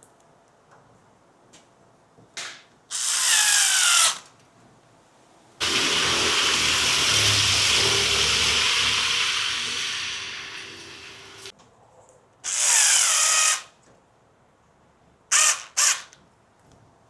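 Cordless electric screwdriver running in short bursts, its whine dropping in pitch as it drives screws, with one longer run in the middle that fades away and two quick blips near the end.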